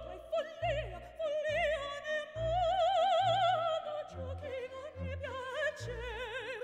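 Operatic singing with wide vibrato on long held notes, over instrumental accompaniment with a deep bass line.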